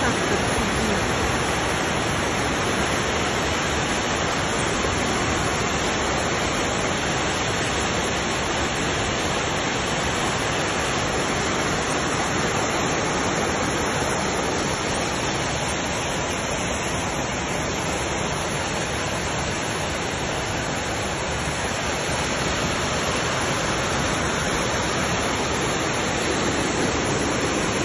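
Fast muddy floodwater rushing down a street, a steady, unbroken noise of a torrent carrying debris.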